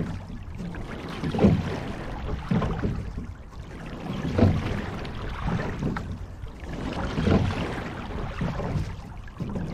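A sculling shell being rowed through calm water, with the water and oar noise swelling rhythmically at each stroke. There is a strong surge about every three seconds and a lighter one between.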